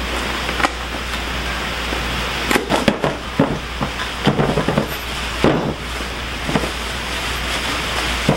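Cardboard box and packing being handled: irregular rustles, crinkles and taps, bunched from about two and a half to six and a half seconds in, over a steady hiss of rain.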